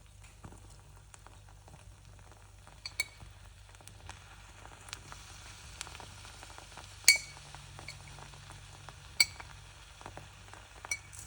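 Faint sizzling of food frying in a pan, with a handful of sharp clinks of a utensil against the cookware, the loudest about seven seconds in.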